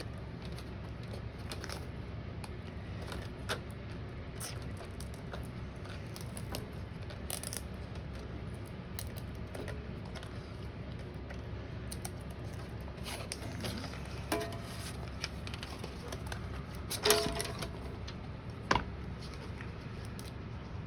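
Faint, scattered clicks and taps of a laptop's screen and panel parts being handled and pried while the screen is worked free of its adhesive tape, over a steady low hum. A few sharper clicks stand out, the loudest about three quarters of the way through.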